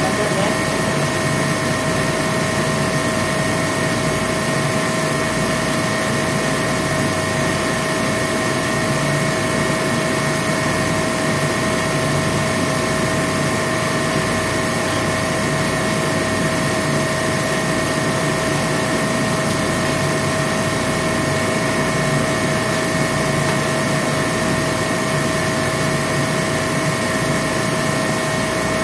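A machine running steadily: a constant mechanical noise with several unchanging high whining tones over it.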